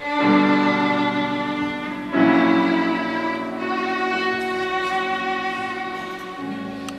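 Violin playing with piano accompaniment. The music comes in loudly at the start, with another forceful attack about two seconds in, and the violin holds long notes over it.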